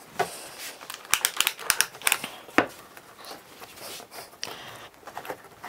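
Hand-handling sounds of a small mitred plywood drawer box being pressed together for gluing: quick clicks, taps and rustling scrapes, with one sharper knock about two and a half seconds in.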